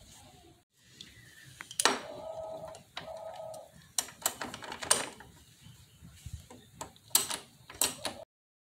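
A dove cooing twice, each coo under a second long, over scattered sharp metallic clicks and taps of a socket wrench being fitted to and worked on a brake caliper's bleed screw. The sound cuts off suddenly near the end.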